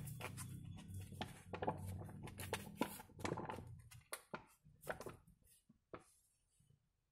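A plastic refill pouch of cooking oil crinkling and clicking as it is squeezed and poured into an engine's oil filler for a flush. A low hum underneath stops about four seconds in, and the clicks thin out and stop near the end.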